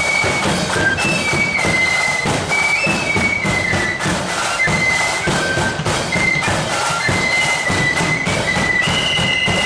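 Marching flute band playing a tune in unison on flutes, the melody moving in held notes, with drums beating a steady march rhythm underneath.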